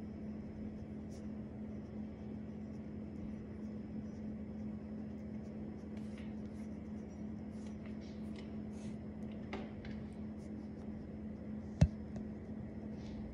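Pen writing on paper in faint short scratchy strokes, over a steady low hum. A single sharp knock near the end.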